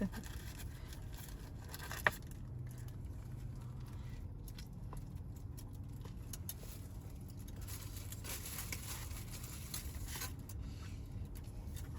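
Steady low background hum with faint scattered rustles and one sharp click about two seconds in.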